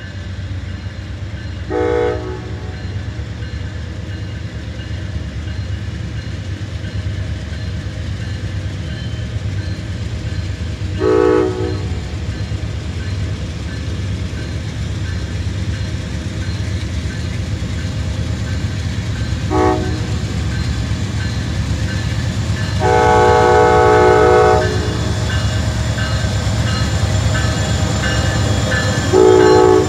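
Amtrak GE Genesis P42DC diesel locomotive creeping up to a grade crossing, its engine rumbling steadily and growing louder as it nears. Its air horn sounds five separate warning blasts spread several seconds apart, the fourth held about two seconds.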